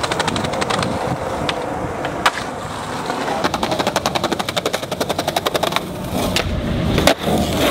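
Skateboard wheels rolling on concrete, with a fast even run of clicks from about three seconds in to about six. Several sharp clacks of the board and trucks hitting the concrete curb ledge.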